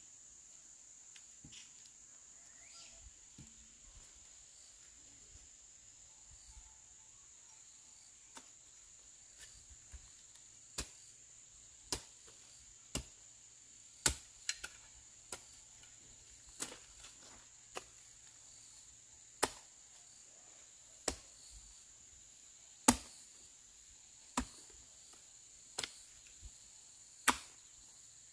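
Sharp single knocks of a tool striking wood as part of the house is demolished, one every second or so, starting about eight seconds in. A steady high insect buzz runs underneath.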